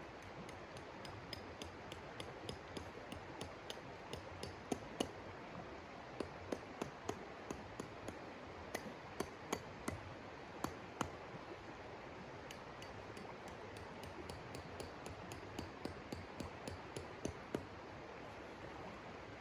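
Irregular sharp clicks and ticks, a few a second, over a steady hiss.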